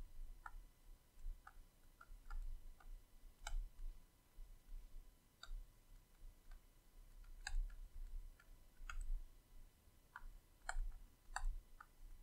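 Faint, irregular clicks and taps of a stylus on a tablet's writing surface during handwriting.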